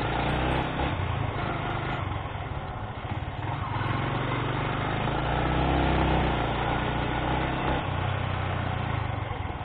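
Motorcycle engine running while riding, its low note shifting slightly with throttle.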